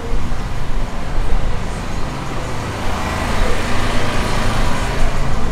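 Road traffic noise with a truck's engine running, a steady low hum, and a swell of road noise about three seconds in as a vehicle goes by.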